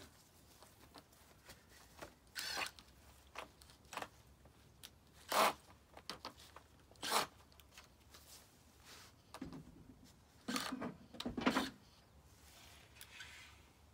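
Scattered short scrapes and rustles of hands fitting a metal skirting track along the base of a house, with a tighter cluster of scraping near the end.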